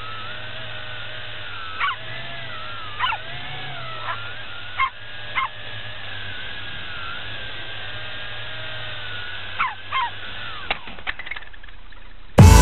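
Multirotor drone's motors whining steadily, the pitch wavering up and down, with a dog giving about eight short barks or yips over it.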